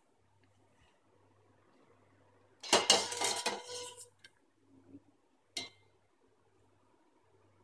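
Stainless-steel slotted skimmer clinking and scraping against a steel pot while lifting potato strips out of the water. A cluster of clinks comes about three seconds in, then a softer knock and a single sharp clink later on.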